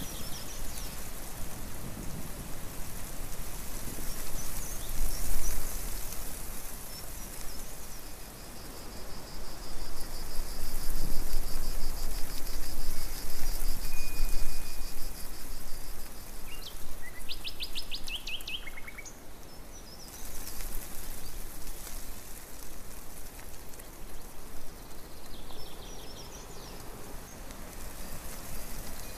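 Outdoor ambience: birds chirping and trilling over a steady rushing hiss, with a quick run of repeated high notes a little past the middle.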